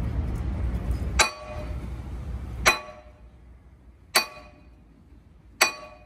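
Hammer blows on steel: four sharp, ringing strikes about one and a half seconds apart, over a low rumble that fades out about halfway through.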